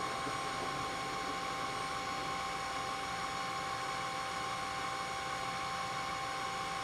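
Tesvor R5 cordless wet-dry floor scrubber running its self-cleaning cycle in its charging base: the motor runs steadily with a high whine over an airy hiss.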